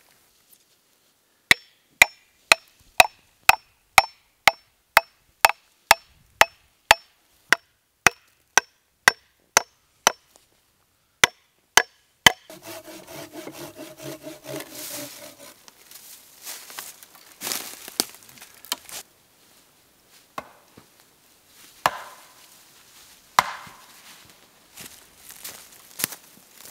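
Axe chopping into a short log, about two blows a second for some twelve seconds, each blow a sharp knock with a faint ring. After that comes rasping, scraping wood-cutting as a branch is worked with a saw, with a few scattered knocks near the end.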